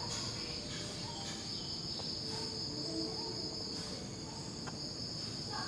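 Steady, unbroken high-pitched drone of insects, such as crickets, in the background.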